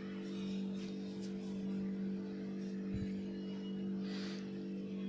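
Faint scraping of a silicone spatula stirring dry flour in a steel bowl, over a steady low hum.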